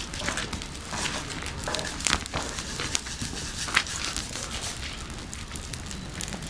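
A small open fire crackling, with irregular sharp pops and snaps; the loudest snaps come about two and about four seconds in.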